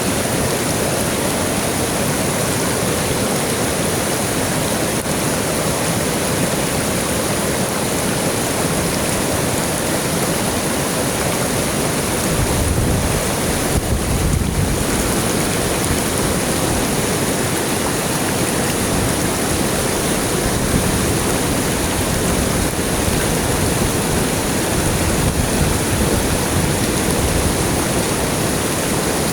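River water rushing steadily over rocks, an even, loud wash of noise; a deeper low rumble swells for a few seconds about halfway through.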